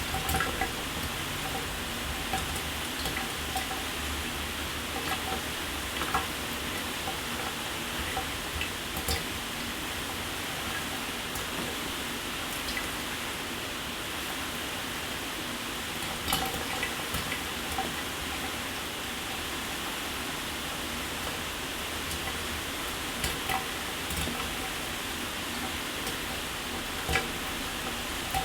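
Shower running: a steady hiss of water spray, with scattered louder drips and splashes now and then.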